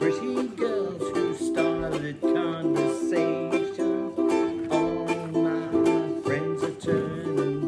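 Music: a ukulele strummed in a steady rhythm with sustained chords.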